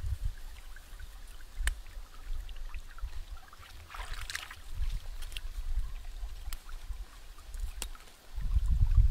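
Green plants being picked by hand: a few sharp snaps of stems and a brief rustle of leaves, over a steady low rumble that grows louder near the end.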